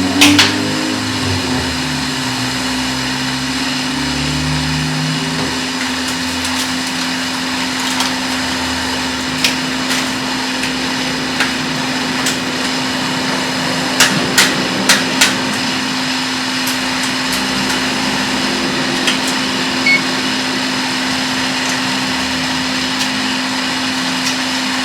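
Hot-air rework station blowing steadily with a constant hum while a small chip is desoldered from a laptop logic board, with a few sharp clicks, four of them in quick succession about halfway through.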